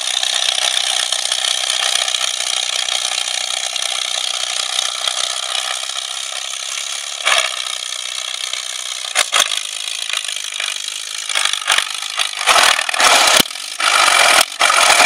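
Vintage tractor engine running steadily under load while pulling a plough through the soil, drawing closer. Several loud blasts of noise come near the end.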